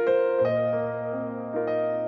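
Background piano music: a few notes struck about half a second and a second apart and left to ring.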